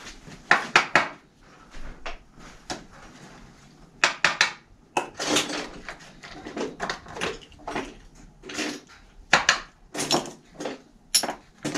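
Irregular metallic clinks, clicks and knocks of hand tools and hub parts as a kids' bike rear freewheel hub with loose ball bearings is worked on in a bench vise.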